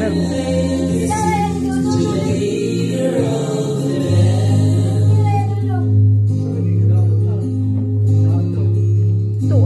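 Background music: a song with a singing voice over guitar and a steady bass line, the voice dropping out about five and a half seconds in.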